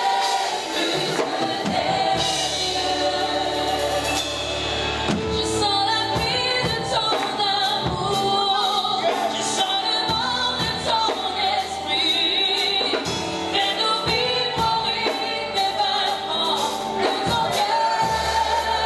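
Live gospel worship music: a group of singers sings a French-language praise song over band accompaniment with a steady beat.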